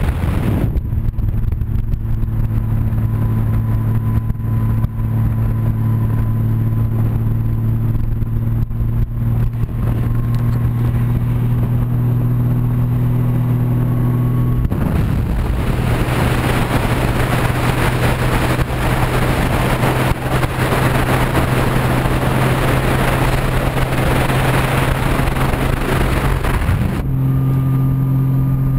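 Motorcycle engine running at a steady cruising speed, a constant low drone, with wind rushing over the microphone. About halfway through the wind noise swells and covers the engine, and near the end the drone comes back at a slightly higher pitch.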